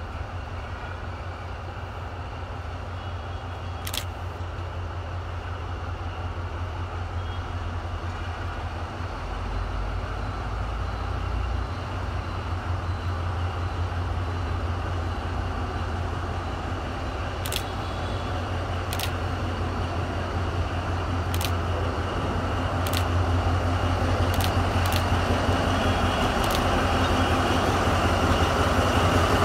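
D10H (DFH21) diesel-hydraulic locomotive's diesel engine running with a steady low hum, growing louder as the locomotive slowly approaches. A few sharp clicks come through, one about four seconds in and several more in the second half.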